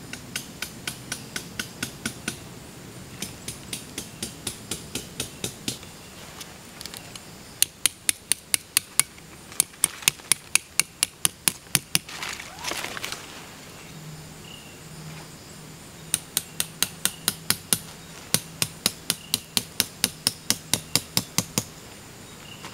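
A hammer tapping metal tent stakes into the ground: several runs of sharp, ringing metal taps, about four or five a second, loudest in the middle run.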